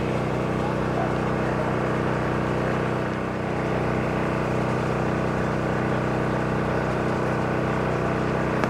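Steady low mechanical hum of a running motor, even in level throughout.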